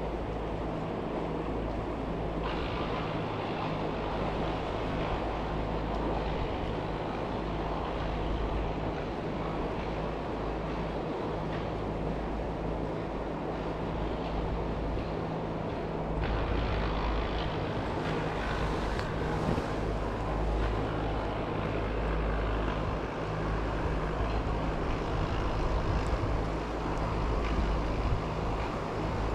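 Mountain stream water rushing steadily, with wind buffeting the microphone.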